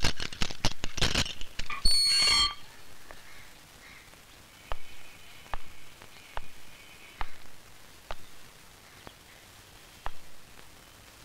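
Keys rattling and a lock clicking, then the barred steel cell door squeals briefly as it swings open about two seconds in. After a pause, slow footsteps on a hard floor, about one step a second.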